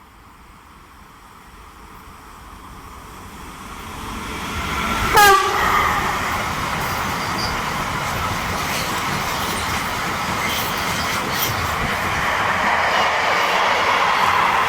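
A train approaching and running through at speed: its rushing noise grows steadily louder, a short horn blast sounds about five seconds in, then loud wheel and rail noise with scattered clacks continues as it passes.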